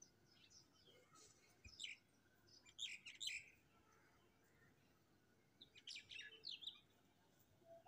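Faint bird chirps: short, high twittering calls in small clusters, about two and three seconds in and again around six seconds in.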